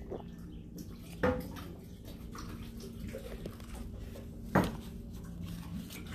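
Two sharp knocks of hard objects being handled, about three seconds apart, the first with a brief ring, over a steady low hum.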